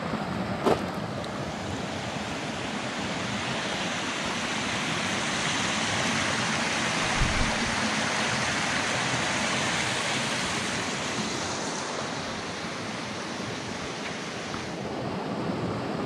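Small rocky brook running over stones: a steady babbling rush that swells in the middle and eases toward the end.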